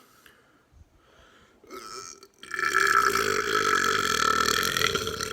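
A man's long, loud burp, starting about two and a half seconds in and held at a steady pitch, made on command by swallowing air.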